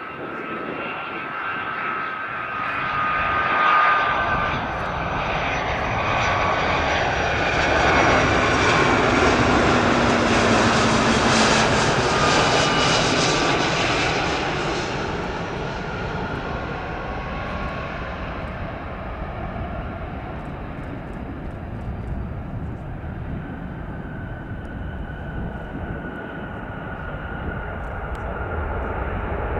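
Boeing 757-300's twin jet engines on a landing approach: a whine over a rumble that swells to its loudest as the airliner passes, the whine dropping slightly in pitch, then eases to a steadier, quieter rumble as it rolls out on the runway.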